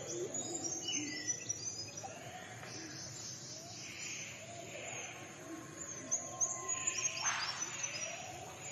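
Forest birds calling over steady background noise: many short high chirps and whistles with repeated lower notes, and a brief rush of noise about seven seconds in.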